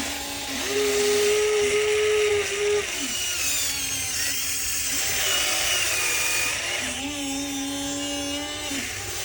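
Electric motors of a toy remote-control excavator whining as its functions run. One whine starts about a second in and stops near three seconds, fainter whirring follows, and a lower whine runs again near the end.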